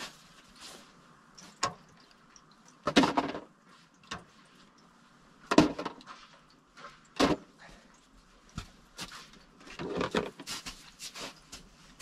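Irregular knocks and clatters of hand tools and hardware being handled while a steel plate is fitted to a wooden post, the loudest about three, five and a half and seven seconds in. Near the end comes a quicker run of short crunching steps in snow.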